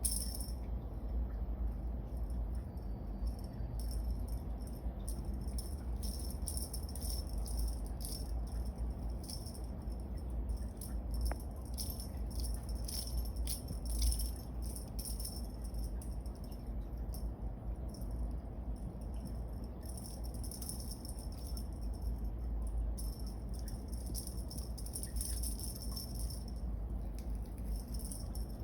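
Small bells on a cat teaser wand jingling in irregular shakes, over a steady low hum.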